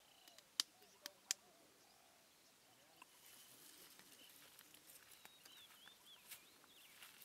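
Near silence with faint bird calls and a few sharp clicks in the first second and a half.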